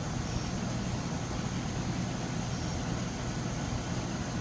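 Steady low mechanical hum of a machine running, even and unchanging.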